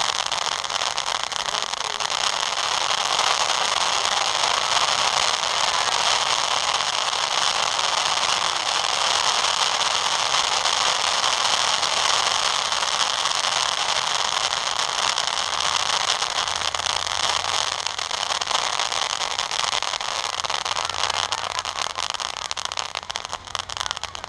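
A row of ground firework fountains burning with a steady loud hiss and dense crackle, thinning out near the end as they burn down.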